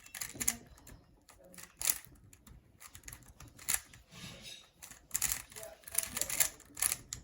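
A 3x3 Rubik's cube being turned fast during a speedsolve: quick, irregular clicking of the plastic layers.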